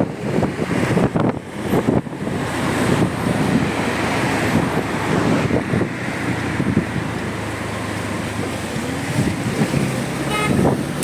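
Wind buffets the microphone while a motorcycle engine runs steadily. A brief horn toot sounds near the end.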